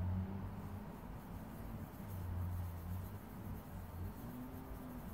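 Pencil scratching on paper as an eye is drawn, with a low hum that comes and goes underneath.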